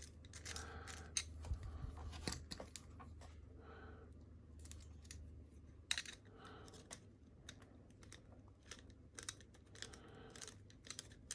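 Faint, irregular small metallic clicks and scrapes from a Master Lock M530 padlock and tools being handled as the lock is taken apart, over a low steady hum.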